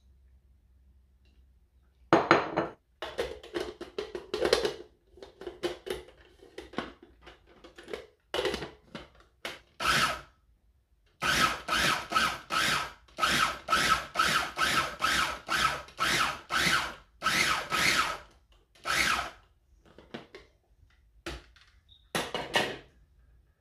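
Small electric food processor run in short pulses, its blade mincing shrimp. The bursts come in a rapid series of about two a second through the middle stretch, with a few separate pulses before and after.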